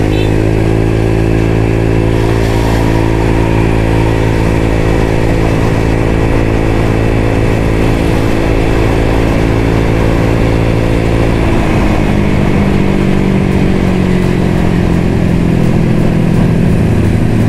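CVT scooter's engine breathing through an aftermarket DSM exhaust, a copy of a CMS pipe, held at a steady cruising note while riding. About twelve seconds in the note drops and settles lower as the throttle eases.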